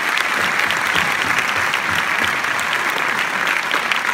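A large audience in a cinema auditorium applauding, a dense, steady clapping of many hands.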